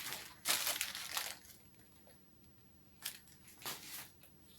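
Close-up eating sounds: food being bitten and crunched in the mouth, in two short spells of noisy crunching.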